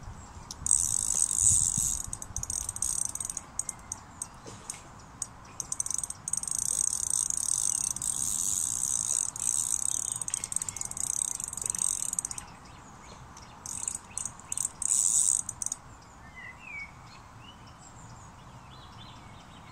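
Fishing reel clicking and whirring in rapid runs while a hooked carp is played on the rod. There are three spells: a short one about a second in, a long one from about six to twelve seconds, and another near fifteen seconds. A small bird chirps briefly after the last spell.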